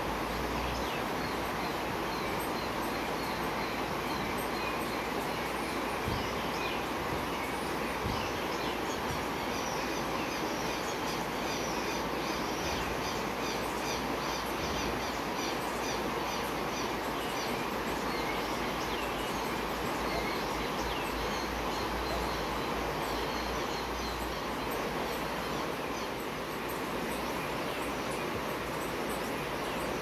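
Steady rush of flowing water, with small birds chirping in quick, repeated notes that are busiest in the middle.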